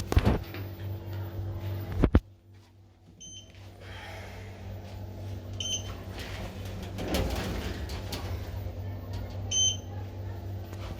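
Schindler 3300 machine-room-less traction elevator: two sharp thumps in the first couple of seconds, a steady low hum, and three short high beeps, about 3, 6 and 10 seconds in.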